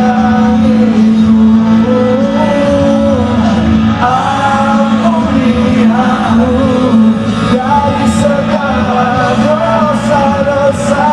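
Live amplified pop music: a man singing a melody over a band with a steady low note.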